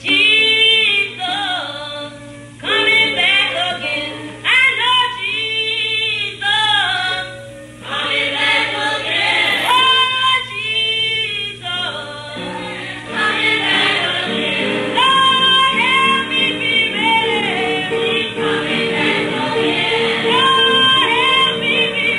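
Church choir and congregation singing a gospel song in an old recording. Voices waver with short breaks in the first half, then the singing turns fuller and steadier about halfway through.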